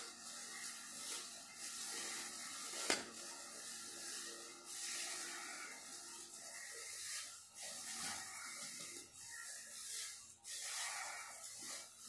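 Thin plastic bag crinkling and rustling as a person breathes in and out of it with the bag held over nose and mouth. The sound swells and fades unevenly, with one sharp click about three seconds in.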